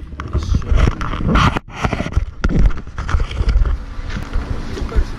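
Wind buffeting a handheld camera's microphone: an uneven low rumble with gusts.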